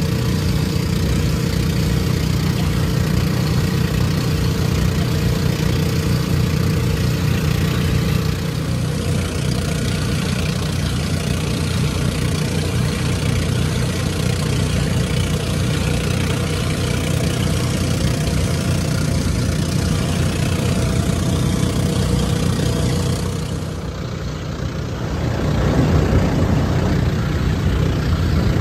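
Outrigger boat's engine running steadily underway, a continuous low drone mixed with the rush of water and wind. The sound dips briefly about three-quarters of the way in, then returns a little louder.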